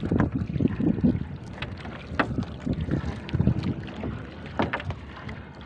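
A fishing net being hauled in by hand over the side of a wooden outrigger canoe: scattered, irregular knocks and clicks as net and gear come aboard, with wind on the microphone.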